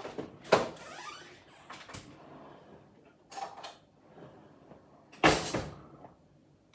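A fridge door shutting with a knock about half a second in, then a cutlery drawer opened with a clinking rattle of cutlery and pushed shut with a loud knock near the end.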